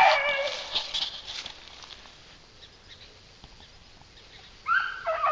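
Beagles baying on a rabbit's trail. A long falling bay dies away over the first second or so, there is a lull, and then the baying starts again with a rising cry near the end.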